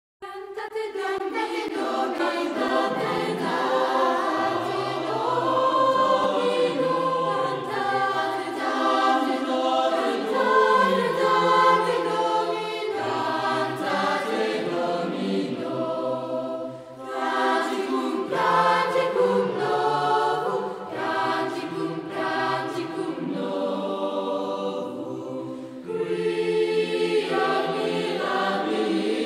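Soundtrack music: a choir of several voices singing in sustained harmony, with low held notes beneath. The singing dips briefly twice, about halfway through and near the end.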